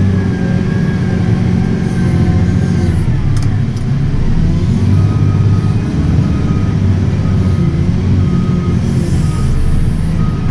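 JCB 435S wheel loader's diesel engine running under load, heard from inside the cab, its note dipping and then picking up again a few seconds in. From about halfway a short high beep repeats about once a second.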